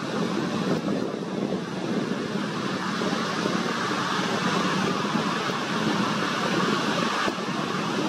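Steady noise of shallow surf washing over the sand, with wind on the microphone.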